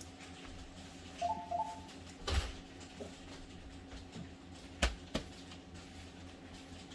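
Handling noises from a laptop being taken apart: a brief squeak about a second in, then a few sharp clicks of parts and tools against its plastic case.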